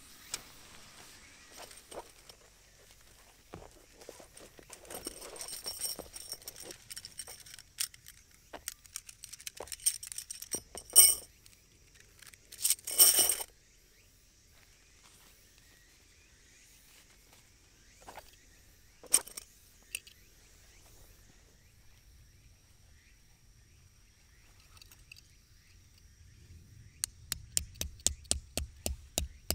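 Tent fabric rustling, then metal tent pegs clinking and ringing against each other twice. Near the end a copper-headed peg hammer starts driving a stake into the ground, a steady run of sharp taps about three a second.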